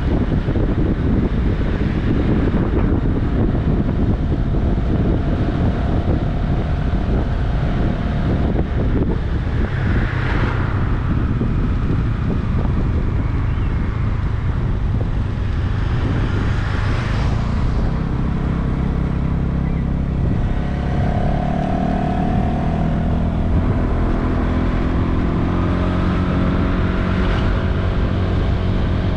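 Honda Vision 110 scooter's single-cylinder engine running on the move, with wind buffeting the microphone. A few rushes swell and fade. Past the middle the buffeting eases and the engine's hum comes through more clearly.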